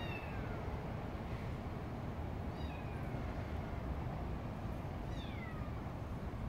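Kittens mewing: three short, high-pitched mews that fall in pitch, a couple of seconds apart, over a steady low rumble.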